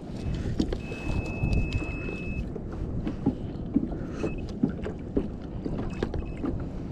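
Wind buffeting the microphone and water slapping against a kayak hull at sea, with small irregular knocks. A thin, steady high tone sounds for about a second and a half near the start, and briefly twice more later.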